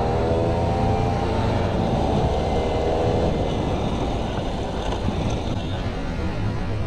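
Motorcycle riding at road speed, its engine tone steady for about three seconds and then sinking under heavy wind rumble on the helmet microphone.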